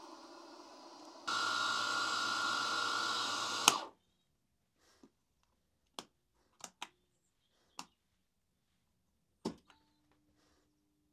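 Belt-drive bench mill's brushless spindle motor running with a steady whine, which grows louder about a second in. A sharp click about three and a half seconds in cuts it off, and a series of separate clicks from the mill's control-panel switches and knobs follows.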